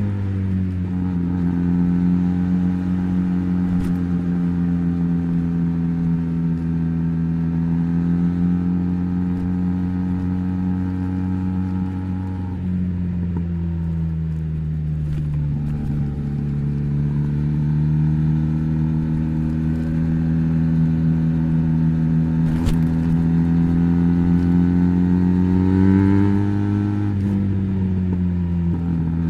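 Benelli BN302's parallel-twin engine running through an Arrow exhaust with the dB killer fitted, held at fairly steady revs. The pitch sags slightly and climbs back, with a short rise and fall in revs near the end.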